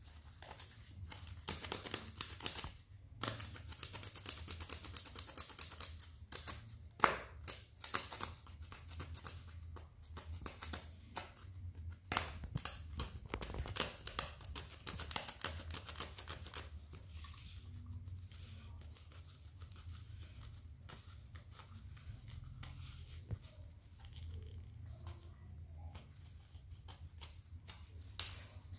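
Clicking and scratching of hands and a small tool working on a worn rubber slide sandal's strap, busy through the first half and sparser later, with a sharp click near the end.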